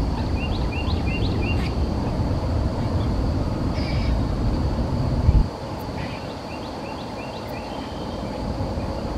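A bird calling in a series of short repeated chirps, with a second series about six seconds in, over a low outdoor rumble that cuts off abruptly about five seconds in.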